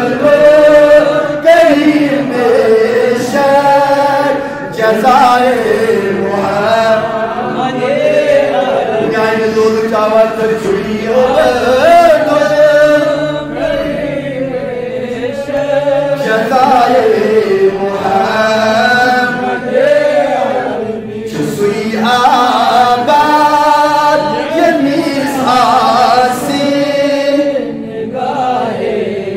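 A man chanting a slow, melodic devotional recitation, with long held notes that bend in pitch and short breaks between phrases, picked up by a microphone.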